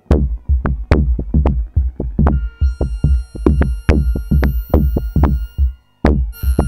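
Electronic music with a fast, steady beat over deep bass. About halfway through, held high synth notes join in. Near the end the music drops out for a moment, then comes back with a falling sweep.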